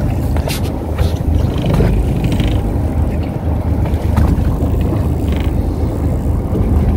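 Steady low rumble of wind and water noise on a small fishing boat at sea, with a few faint short ticks.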